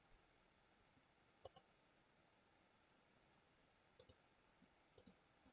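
Near silence broken by three faint, short computer-mouse clicks.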